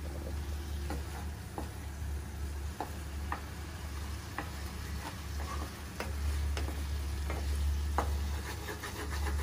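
Tomato pieces frying in a little oil and turmeric in a frying pan, sizzling while a wooden spatula stirs and scrapes them against the pan, with irregular light knocks about once or twice a second. A steady low hum runs underneath.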